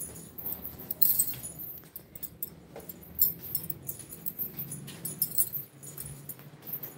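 Handling noise from a phone held close to the microphone: rustling with many small irregular clicks and clinks.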